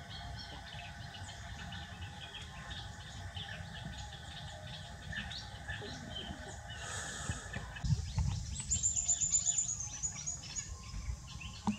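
Small birds chirping repeatedly in short high notes, with a very high trill that steps down in pitch about two-thirds of the way through. A few low soft knocks come just before the trill.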